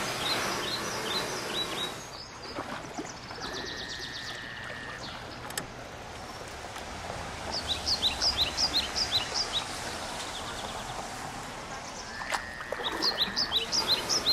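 A songbird singing: a held whistled note followed by a quick series of short, falling chirps, repeated several times over a steady outdoor hiss.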